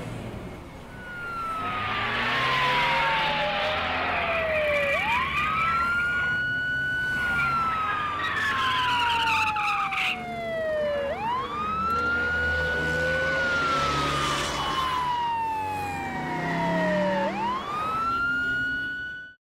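Police car siren wailing: a single tone sweeps up quickly, then slides slowly down, about every six seconds, over the running engines of passing cars. It cuts off suddenly at the end.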